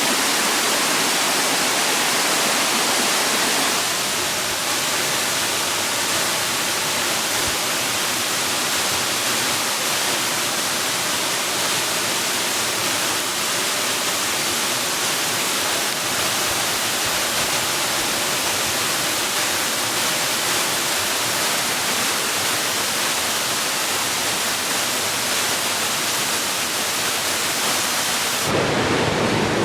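Steady rush of falling water, a dense even hiss. Near the end it switches abruptly to a fuller, lower-sounding rush.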